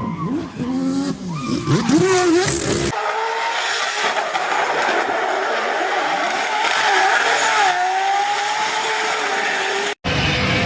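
Drift car engine revving up and down hard for about three seconds, then an abrupt cut to tyres squealing in a long slide, a wavering high screech over steady tyre noise.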